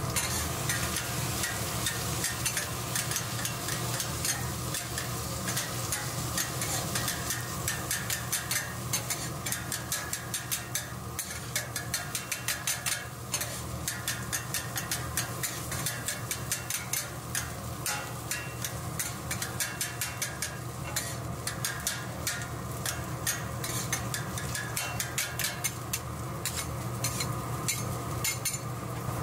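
Two metal spatulas chopping and scraping potato on a hot flat-top griddle, with rapid, uneven clacks of steel on the griddle plate over a steady sizzle and a low hum.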